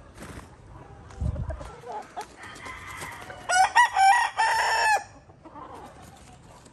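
Gamecock rooster crowing once, a broken multi-part crow of about a second and a half that starts about three and a half seconds in. Softer clucking from the hens comes before it.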